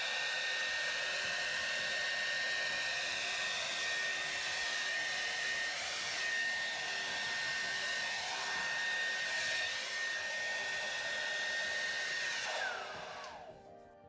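Hair dryer running on high speed, a steady rush of air with a high motor whine, blowing wet acrylic paint across a canvas. Near the end it is switched off and the whine falls away.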